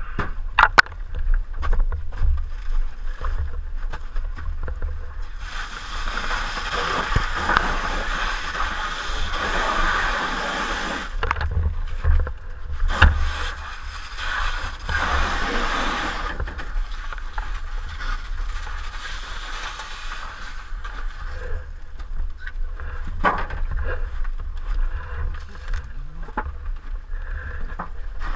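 Fire hose nozzle spraying water in two long hissing bursts, the first about five seconds long and the second about three, over a steady low rumble and a few knocks.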